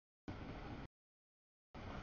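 Steady rolling noise of a freight train of autorack cars passing over a grade crossing, with no bell or horn. The sound comes in short pieces about half a second long, one shortly after the start and one near the end, with dead silence between them where the audio drops out.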